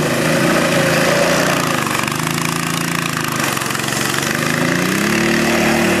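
Small engine of a motorized lawn chair running hard under throttle, a steady engine note that dips a little midway and then climbs in pitch about five seconds in as it revs up.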